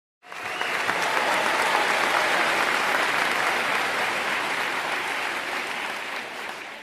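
Crowd applause: many people clapping together, starting abruptly a moment in, holding steady, then beginning to fade near the end.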